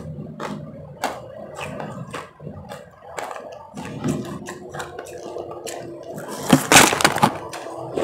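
Close-miked crunching and chewing of refrozen powdery ice: many crisp cracks and crackles, loudest in a dense run of bites about six and a half to seven seconds in.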